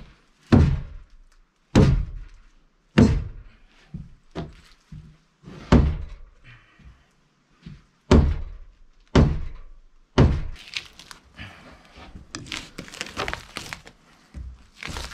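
Hammer blows on timber, about eight sharp strikes roughly a second apart. About ten seconds in they give way to rapid scraping and chopping as a large knife strips bark from a log post.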